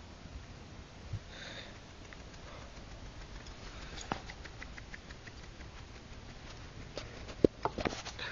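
Pekingese dog scuffling right against the phone's microphone, sniffing and scratching. There is a quick run of fine clicks from about four seconds in and a few sharp knocks near the end.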